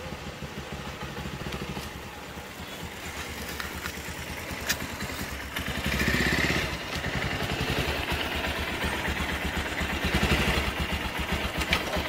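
Bajaj Pulsar motorcycle's single-cylinder engine running as the bike rides up the lane and pulls up close. It gets louder from about six seconds in, as the bike comes near.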